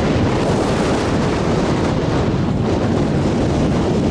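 Wind buffeting the camcorder's microphone, a loud, steady low rumble.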